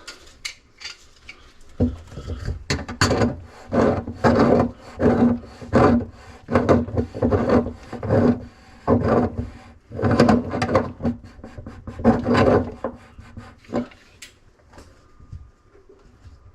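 Rhythmic back-and-forth rasping strokes of a hand tool, about two a second, for some twelve seconds before stopping.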